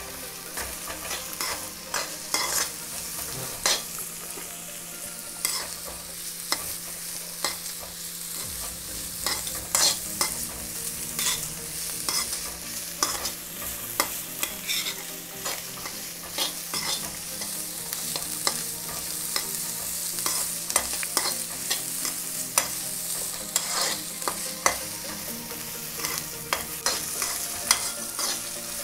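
Capsicum strips and onions sizzling in hot oil in a non-stick kadai, stirred with a metal spoon that scrapes and taps against the pan over and over, at an uneven pace.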